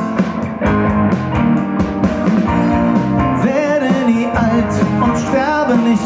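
Live rock band playing: a man singing over acoustic and electric guitars, electric bass and drums.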